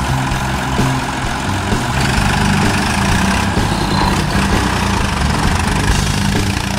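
Massey Ferguson 135 tractor engine running steadily as the tractor drives slowly past towing a caravan.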